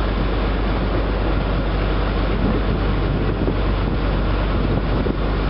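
Steady low rumble of the riverboat MV Wairua's engine running under way, with wind noise on the microphone.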